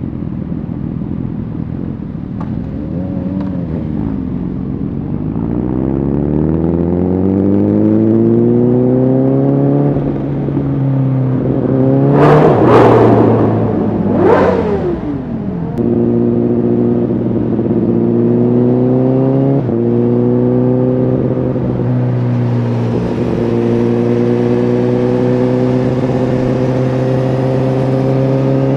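Honda CBR1000RR Fireblade SC77 inline-four with an aftermarket Shark Factory exhaust, heard from the rider: the engine pulls up through the revs, then two loud, sharp rev peaks about halfway through. After that it runs steadily at cruising revs, with a few gear changes.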